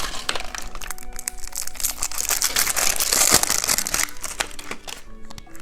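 Plastic candy wrapper crinkling as it is handled and opened, a dense run of rapid crackles that eases off near the end.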